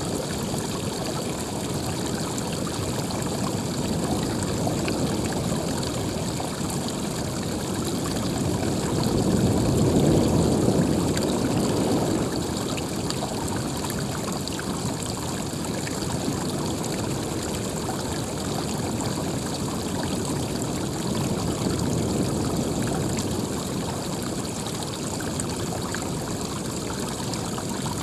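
Running water rushing and trickling steadily, swelling louder for a few seconds around ten seconds in.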